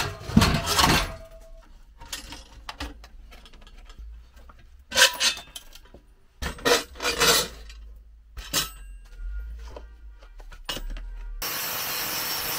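Steel frame pieces clanking and knocking against each other as the tumbler's square-tube frame is dismantled. Near the end an angle grinder with a flap disc starts up against a rusty steel roller, running with a steady grinding hiss.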